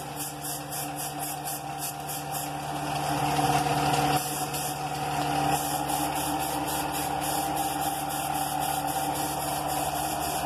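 Air compressor running steadily with a low hum while a paint spray gun hisses, the hiss pulsing rapidly and swelling about three to four seconds in.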